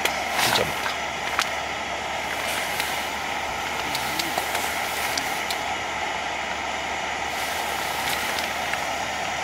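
Gas cartridge stove with a radiant heater cap burning, a steady hiss of the flame, with a few faint ticks.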